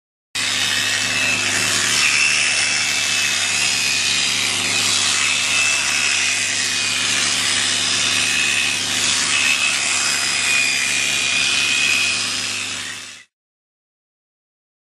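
AC 320 W electric shearing clipper handpiece running as it cuts through alpaca fleece: a steady mechanical buzz with a high whine over a low hum. It starts abruptly and cuts off suddenly about two seconds before the end.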